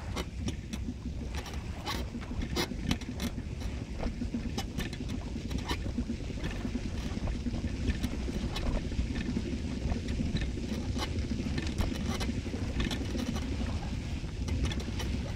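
Wind buffeting the microphone in a steady low rumble, with scattered sharp clicks and crunches throughout.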